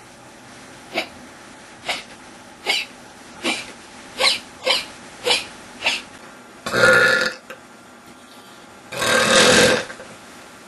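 A person hiccuping: eight short, sharp hiccups, most under a second apart. These are followed by two longer, louder burps a couple of seconds apart.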